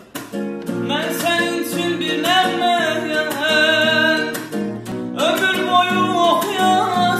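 A man singing an Azerbaijani-language song with long held notes, accompanying himself by strumming an acoustic guitar.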